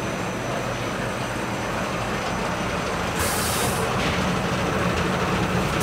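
Chocolate-moulding production line machinery running steadily, with a short burst of hissing about three seconds in.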